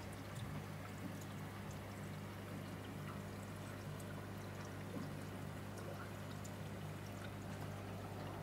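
Aquarium filter running: a steady trickle and pour of circulating water over a constant low hum.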